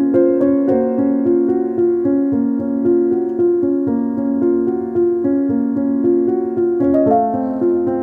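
Background music: a calm keyboard piece of held, overlapping notes, moving to a new chord near the end.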